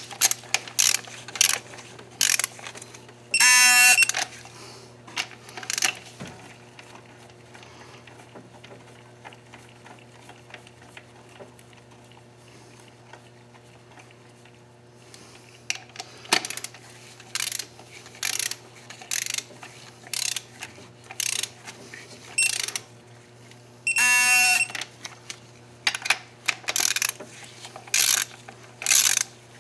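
Socket ratchet clicking in short runs as engine bolts are torqued, with a digital torque tool giving a short beep twice, about three seconds in and near the end, as it reaches the set torque.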